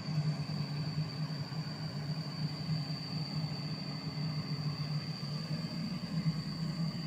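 Sany SY55C mini excavator's diesel engine running steadily, with a steady high whine over its low hum.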